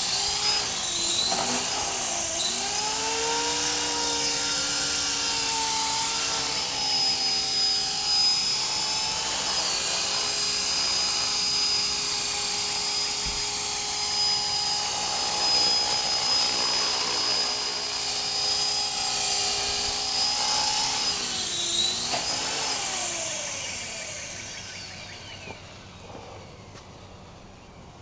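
CopterX 450SE electric RC helicopter's motor and rotor blades whining steadily in a hover, the pitch shifting up and down. Over the last few seconds, after it is set down, the whine fades as the rotor spools down.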